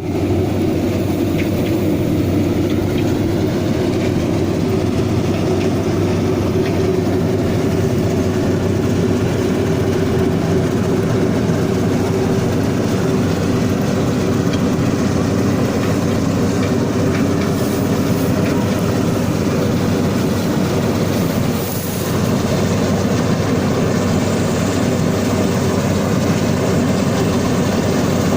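Rice combine harvester running: a steady heavy mechanical rumble with a low hum, dipping briefly about three quarters of the way through.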